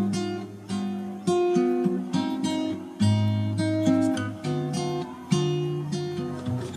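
Background music: acoustic guitar played with plucked and strummed chords, each struck about once a second and left to ring.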